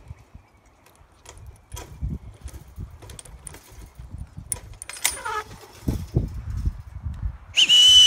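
A person gives a loud, shrill whistle near the end, a short note that rises then holds. Beneath it, the crowded flock of sheep shuffles on the dirt, with scattered small clicks.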